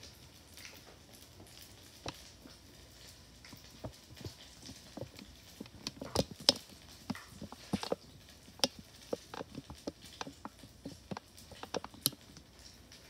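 Conch fritters frying in hot oil in a pan: a steady faint sizzle with scattered sharp pops and crackles, and clicks of metal tongs against the pan as the fritters are turned.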